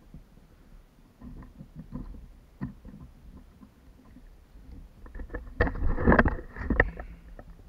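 A hooked barracuda being landed beside a plastic kayak: a few light knocks, then about five and a half seconds in a loud burst of splashing and knocking for over a second as the fish is lifted out of the water.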